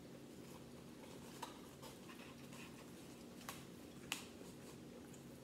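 Faint eating sounds: a few soft mouth clicks and smacks while grilled duck meat is pulled apart by hand, over a steady low hum.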